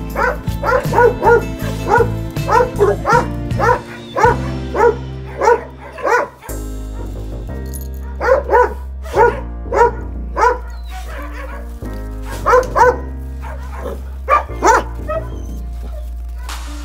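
Hunting dog barking in runs of quick, evenly spaced barks, about two or three a second, with short pauses between runs, over background music of held chords.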